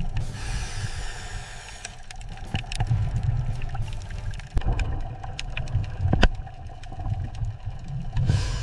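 A low mechanical rumble with scattered clicks and two brief hissing rushes, one near the start and one near the end.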